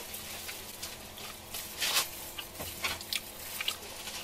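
Eating sounds: a string of small wet clicks and crackles from chewing and handling food, the loudest about two seconds in.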